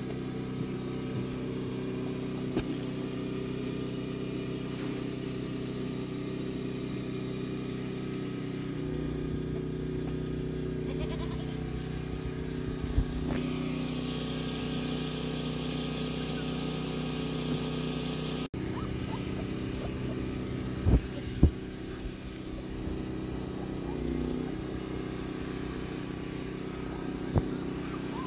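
An engine running steadily, with a few short knocks over it.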